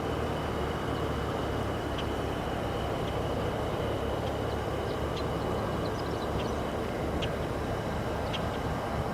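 Aircraft engine running steadily, with a thin high whine held throughout and a few short high chirps scattered over it.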